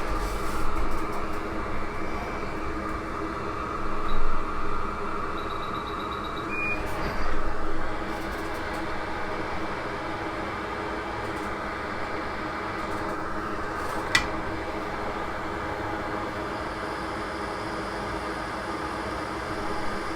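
Steady fan hum from workbench equipment during micro-soldering, with a few handling bumps, a short beep and one sharp click about two-thirds of the way through.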